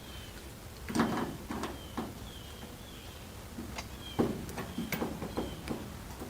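Doorknob hardware clicking and knocking against the door as its mounting screws are loosened and the knob is shifted to line it back up, with a handful of separate knocks and a cluster of quicker clicks in the second half. Faint short high chirps sound here and there between them.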